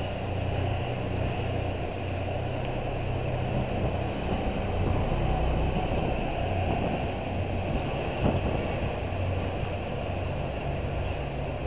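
Open-top sightseeing bus on the move, heard from the open upper deck: a steady engine and road rumble under a wide rush of wind and traffic noise, with one short knock about two-thirds of the way through.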